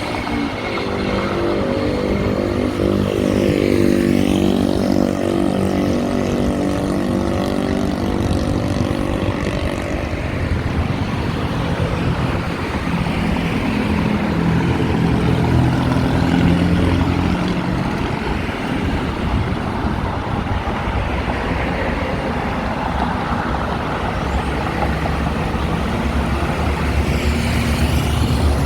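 Busy multi-lane road traffic passing close by: heavy vehicle engines running and shifting in pitch as they pull along, over a steady rumble of tyres and engines.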